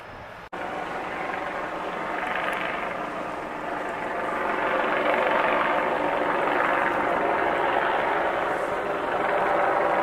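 Turbine helicopter in flight: a steady engine whine over rotor noise, growing louder about four seconds in as it passes.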